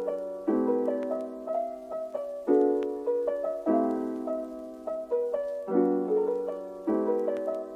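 Soft background piano music: gentle chords struck about once a second, each left to fade before the next.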